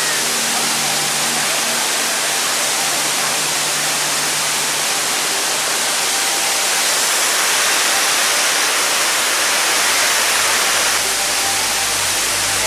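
Rushing water of a rocky mountain stream with small cascades, a steady loud hiss of water.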